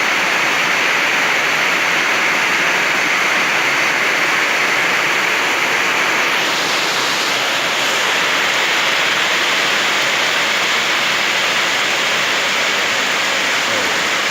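Heavy rain pouring down in a summer storm, a steady, dense hiss.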